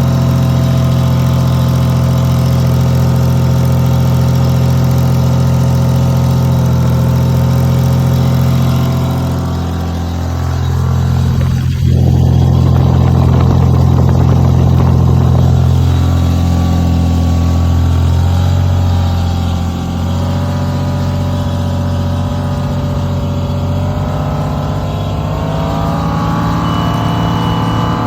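Generator engine running under the load of a bank of clothes-dryer heating elements. Its steady note dips and changes pitch several times, about a third of the way in, just past halfway and again near the end, as heating elements are switched in or out.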